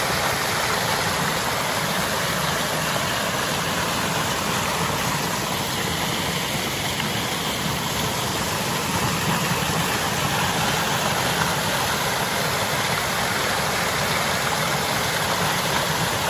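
Small waterfall cascading over rocks into a pool, heard close up: a steady, loud rushing splash of falling water.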